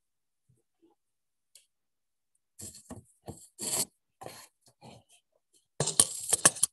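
Handling noise from about two and a half seconds in: short bursts of scraping and rubbing as a plastic tray is pushed across a table and the camera is moved. A denser cluster of knocks and scrapes near the end is the loudest part.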